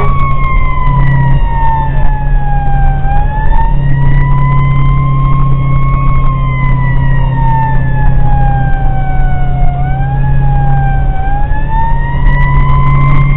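Fire engine's siren on a slow wail, its pitch sliding down and up in long sweeps about every three seconds, heard from aboard the engine with the truck's engine droning steadily underneath.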